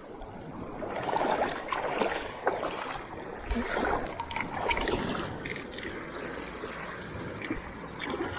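Shallow water splashing and sloshing in irregular bursts as a hooked black drum thrashes near the shore, over lapping water.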